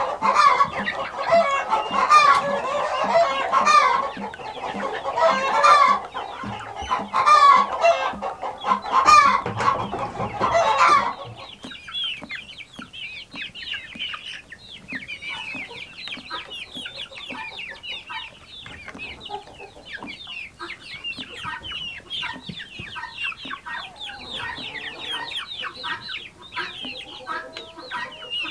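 A flock of chickens clucking and calling, loud and dense at first, then cutting abruptly about a third of the way in to softer, higher-pitched chatter.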